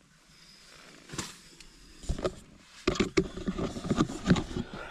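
Handling noise: rustling, bumping and brushing as a man shifts about inside a tent and moves the camera, getting busier in the second half.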